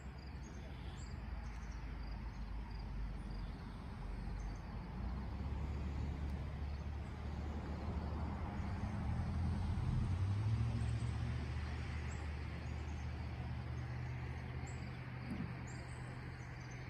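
A low engine hum passing by, growing louder to a peak about ten seconds in and then fading away.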